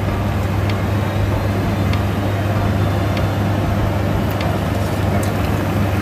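Chicken and vegetable curry boiling in a frying pan on a gas stove: a steady hiss with a few faint pops, over a constant low hum.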